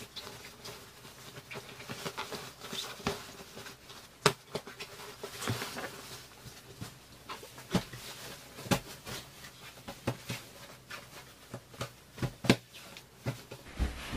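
Bedding being handled: fabric covers rustling, with irregular soft knocks and pats, as a bolster is worked into its cloth case and a sheet is smoothed over a spring-bed mattress. The sharpest knocks come about four, eight and a half and twelve and a half seconds in.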